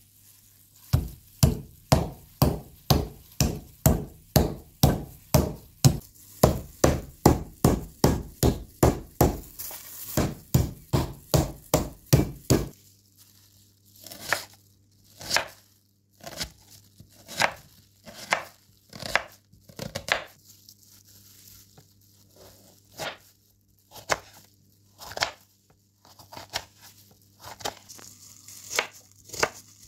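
A fast, even run of heavy knocks on a board, about three a second, that stops abruptly near the middle. Then a chef's knife slices an onion and a green pepper on a plastic cutting board, in lighter, uneven cuts a second or so apart.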